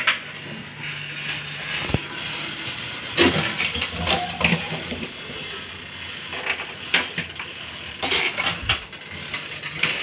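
Scattered clicks and light knocks as a wooden kitchen wall cabinet door is opened and handled.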